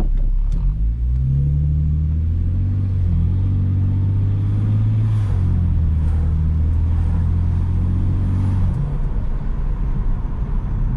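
BMW 335i's twin-turbo N54 inline-six heard from inside the cabin, pulling under light throttle: the note rises early on, then holds a steady drone. About nine seconds in the engine note drops away, leaving a low road rumble.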